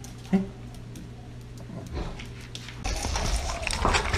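A short pitched yelp about a third of a second in. From about three seconds in, an Alaskan malamute chews and licks scraps off paving stones, with irregular crunches and wet clicks close to the microphone.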